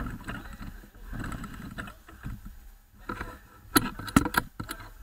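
Rustling and knocking as a driver climbs into a go-kart right beside its mounted camera: clothing brushes past the microphone, then comes a quick cluster of sharp knocks about four seconds in.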